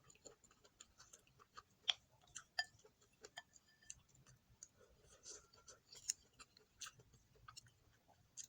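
Quiet close-up eating sounds: chewing, with scattered short sharp clicks and taps throughout, the loudest about two seconds in.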